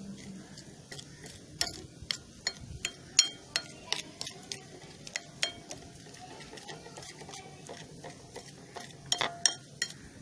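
Slime mixture of glue, detergent and baking soda being stirred in a bowl, the utensil clicking and tapping against the bowl at an irregular pace, some taps ringing briefly.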